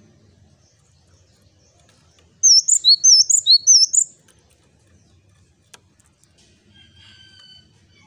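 Male cinereous tit (gelatik batu) singing one quick 'wucit wucit' phrase about two and a half seconds in. The phrase is a short motif of high whistled notes dropping to a lower note, repeated about three times, and it lasts under two seconds.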